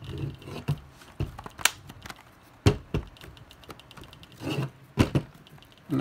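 Lenovo Yoga 700 laptop's bottom cover being pressed back into place, snapping shut with a series of sharp clicks and knocks.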